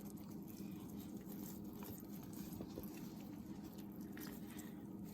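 Faint soft, wet tearing and small crackles of hands pulling steamed chicken meat off the drumstick bones, over a steady low hum.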